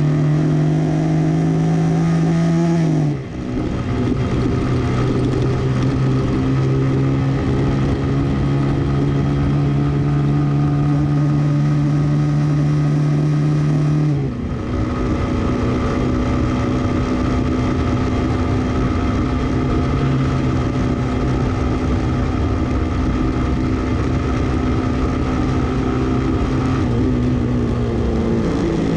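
Suzuki GN125H's single-cylinder four-stroke engine pulling the motorcycle along, with wind rush over the microphone. The engine note climbs and then drops after a brief lull about three seconds in, and again around fourteen seconds: upshifts. It then holds steady and sags slightly near the end.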